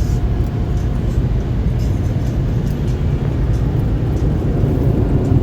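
Automatic car wash air dryer blowers blowing on the front of the car: a steady, loud rush of air with no breaks.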